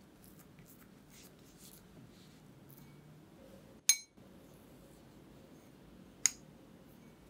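Kitchen utensil clinking against a bowl twice, two short ringing clinks about two and a half seconds apart, between faint handling sounds.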